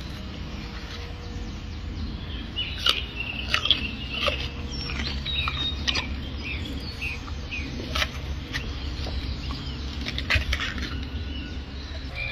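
A gorilla eating, with sharp crunches of chewed food every second or two, while small birds chirp in short high calls, mostly in the first half, over a steady low hum.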